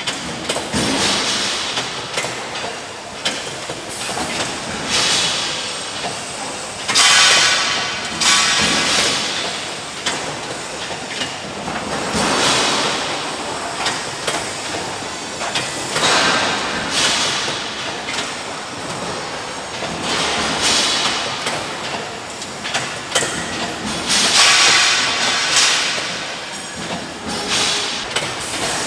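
CNC punching machine for steel sections at work, with a steady mechanical clatter and loud bursts of hissing every few seconds.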